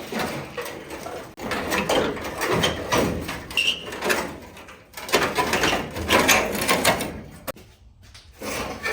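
Rusty car-body sheet metal scraping and clattering in irregular bursts as a cut-off section of the upper plenum panel is worked loose by hand.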